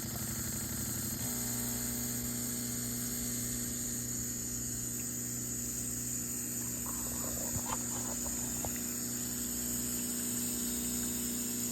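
A DeLonghi Magnifica S espresso machine's water pump runs with a steady hum, pushing water through during a water test. Its sound changes about a second in, from a pulsing buzz to a smoother, steadier hum. A few small clicks come near the middle.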